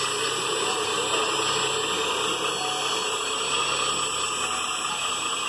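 Hydraulic pump of a scale RC wheel loader running with a steady whirring hiss as the loader raises its bucket.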